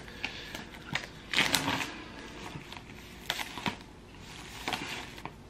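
Plastic shrink-wrap being torn and peeled off a cardboard product box, crinkling in several short bursts, the loudest about a second and a half in.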